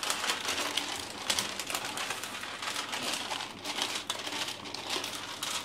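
Wooden rolling pin rolled back and forth over baking paper covering dough, the paper rustling and crinkling with each stroke.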